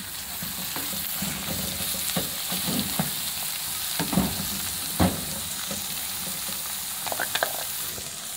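Raw minced meat sizzling in hot ghee in a frying pan while a wooden spoon stirs it. The spoon scrapes and knocks against the pan now and then, most sharply about five seconds in.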